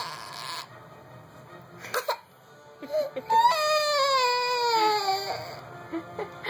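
Baby crying: a cry trailing off at the start, short sobs about two and three seconds in, then one long wail that falls steadily in pitch over about two seconds.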